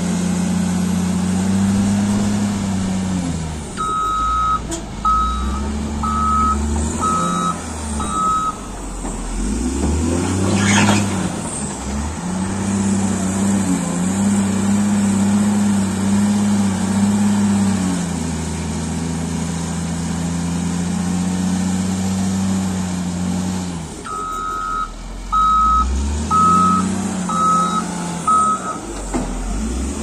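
Caterpillar 950H wheel loader's diesel engine running and revving up and down as the machine works. Its reversing alarm beeps twice, each time five short beeps about a second apart, while it backs up.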